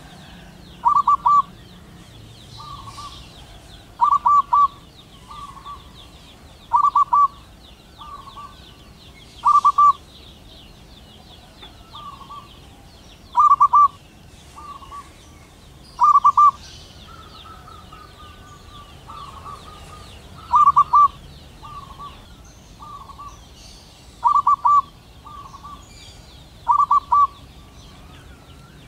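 Male zebra dove (perkutut) singing its rapid staccato cooing phrases, nine loud ones spaced a few seconds apart with softer coos in between. A faint high chirring runs behind them throughout.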